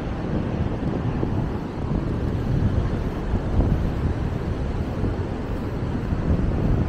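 Wind buffeting the microphone, a low rumble that rises and falls in gusts.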